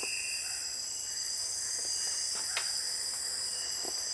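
Steady, high-pitched chorus of night insects in tropical rainforest, with a couple of faint short clicks in the middle of it.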